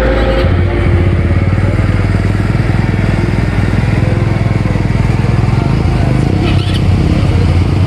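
ATV engine running steadily with a low rumble, its note shifting about half a second in.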